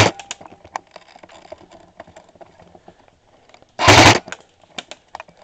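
Airsoft rifle fired in one short, loud full-auto burst of rapid pops about four seconds in, with scattered faint clicks of other shots around it.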